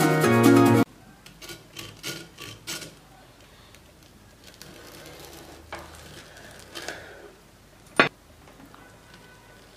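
Background music cuts off under a second in, then a knife slices through a crisp breaded fried chicken nugget on a wooden cutting board: a run of short crunches, a few softer ones later, and a single sharp tap near the end, the loudest sound after the music.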